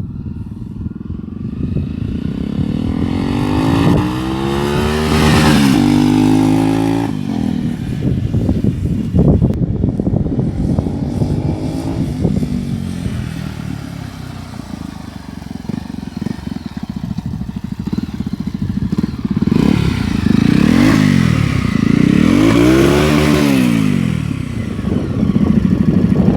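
Honda CB300 motorcycle with a 3-into-1 exhaust and no DB Killer baffle, running loud and open. The engine revs up and drops back several times, with one long climb a few seconds in and two quick rev rises near the end.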